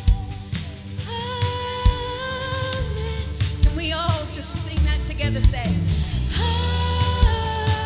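Live worship band with a woman singing lead into a microphone, holding long notes with vibrato over a full band with electric guitar, bass and drums.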